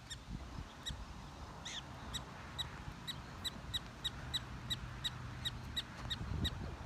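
Black-tailed prairie dog barking: short, high chirps repeated about twice a second.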